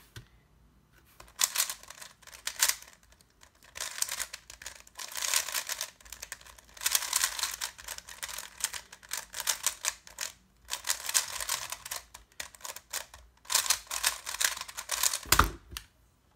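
Sengso Yufeng 3x3 speedcube turned rapidly by hand: fast plastic clicking and clacking in several bursts with short pauses between. Near the end, one louder thump as the solve finishes and the timer is stopped.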